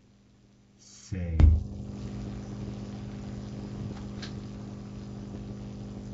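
A sharp click about a second and a half in, then a steady low hum with several evenly spaced overtones that carries on.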